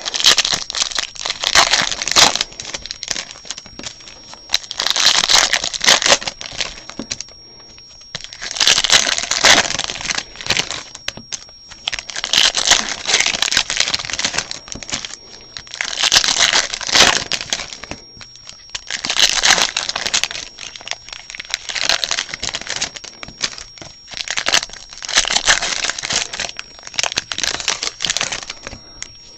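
Baseball card pack wrappers crinkling and being torn open, in repeated bursts every few seconds with quieter gaps between.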